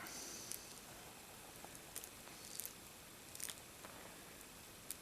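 Faint handling noises from a plastic action figure being posed: a few small clicks and brief soft rustles of fingers on plastic.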